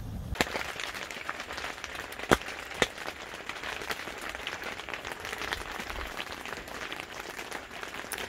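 Rain pattering steadily on the fabric roof of a pop-up ice-fishing hub shelter, heard from inside, with two sharper taps about two and a half seconds in.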